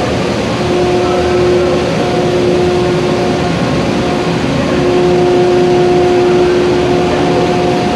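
Glass furnace's burner and blower running: a loud, steady roar, with a steady hum that drops out and comes back several times.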